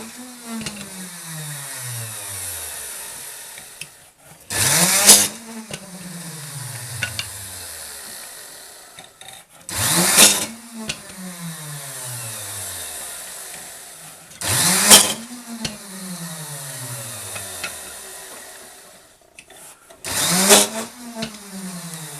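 Electric drill in a homemade jig for beehive frame bars boring through the wooden bars one after another: each time the motor speeds up, cuts through the wood with a short loud rasp, then winds down in a long falling whine. The cycle repeats about every five seconds.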